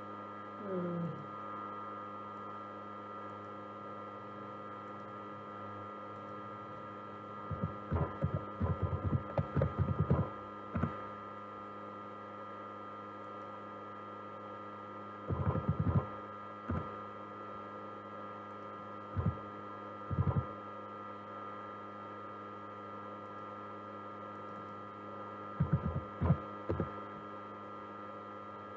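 Computer keyboard keystrokes and mouse clicks, coming in quick runs and single clicks, over a steady electrical hum with several fixed tones.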